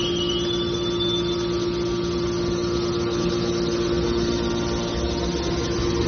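Electric motor and hydraulic pump of a hydraulic metal baler running steadily: a constant hum with a steady whine. In the first second a high tone rises, then levels off and fades.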